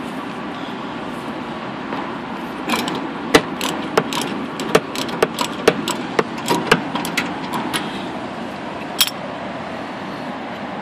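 Ratchet with a 13 mm socket clicking as it is swung back and forth, spinning out a rear brake caliper bolt. The clicks are sharp and uneven, about two a second, starting about three seconds in and running for roughly five seconds, with one more a little later.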